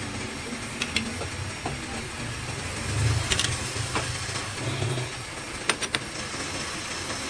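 Lathe running with a steady low hum that swells twice, with a few sharp metallic clicks and ticks scattered through it.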